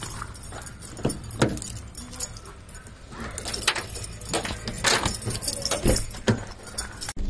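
Keys and a metal chain on a keyring jangling and clinking as a key is worked into a car's door lock, in a series of sharp, irregular rattles.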